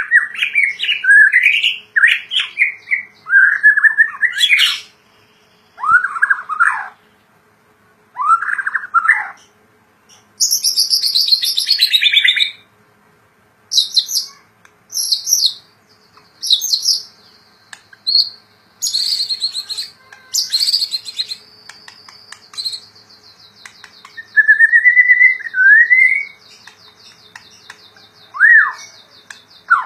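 White-rumped shama singing in loud bursts: varied whistled phrases that slide up and down, with short pauses between them, including a fast, high descending trill about ten seconds in and a buzzy high run around twenty seconds in.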